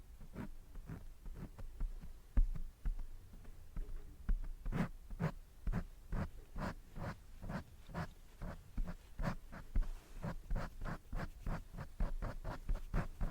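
Light scratching strokes from an art tool worked close to the microphone, repeating about two to three times a second and growing steadier about five seconds in.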